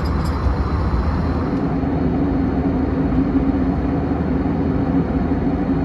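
Steady cabin noise inside an Airbus A321: a low rumble of engines and airflow, with a steady hum that comes in about a second and a half in.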